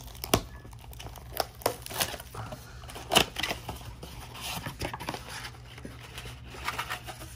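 Cardboard trading-card blaster box being opened by hand, with tearing and crinkling of cardboard and scattered taps and knocks. The loudest knock comes about three seconds in.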